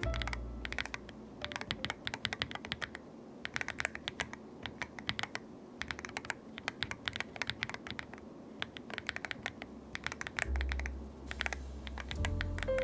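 Typing on hand-lubed Akko Astrolink magnetic switches in a Wooting 80HE with its stock polycarbonate plate, a KBDfans GT-80 case and PBT Cherry-profile keycaps: quick, irregular runs of keystroke clacks with short pauses between the runs.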